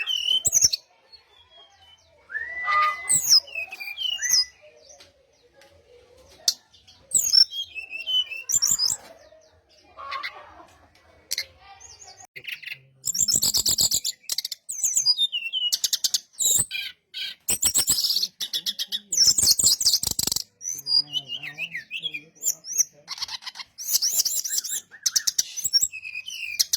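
Brown-chested jungle flycatcher (sikatan rimba dada coklat) singing. Scattered high whistles and chirps come first, then from about halfway it sings long runs of rapid, high chattering notes with short breaks between them.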